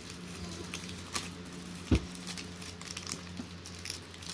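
Shiny metallic foil gift wrap crinkling and tearing as it is pulled open by hand, in scattered crackles, with one dull thump about two seconds in. A low steady hum runs underneath.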